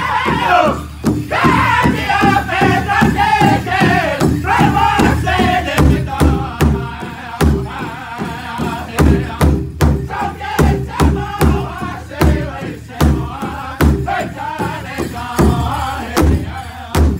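A powwow drum group: several men strike a large hide-covered drum in unison with padded drumsticks, a steady beat of about two strikes a second, while singing a high-pitched powwow song together.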